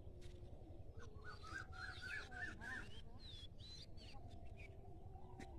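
Small birds chirping, with a quick run of about six repeated notes in the middle, over a steady low rumble.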